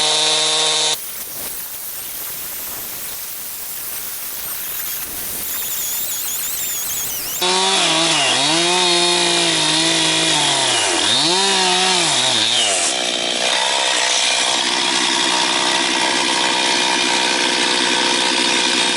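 Chainsaw cutting through a log of red box eucalyptus, a very hard, dense hardwood. The engine runs at high revs, and its pitch dips and recovers repeatedly as the chain bogs in the cut. A quieter stretch of mostly rasping cutting noise runs for several seconds near the start.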